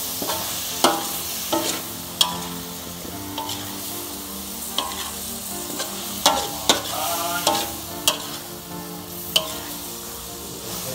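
Squid and offal sizzling in a hot wok as they are stir-fried, with a steady hiss. A spatula stirs and scrapes against the wok, striking it sharply about nine times, a few strikes ringing briefly.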